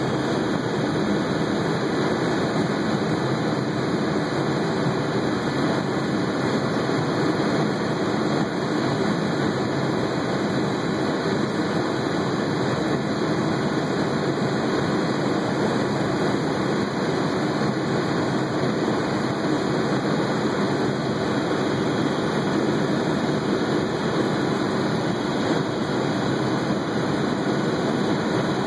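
Helicopter in flight, heard from on board: a loud, steady drone of engine and rotor that does not change.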